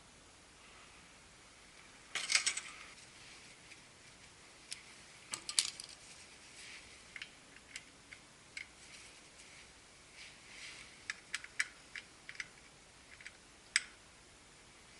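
Small metal tools and parts clinking and tapping during hand work on a motorcycle, with a brief jingle about two seconds in and scattered sharp clicks after.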